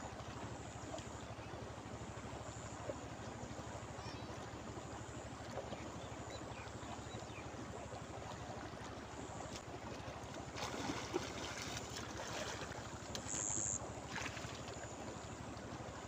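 Steady rush of river water flowing past a muddy bank. About ten seconds in, a few seconds of louder splashing and scuffling as a hooked fish is pulled out of the water onto the bank.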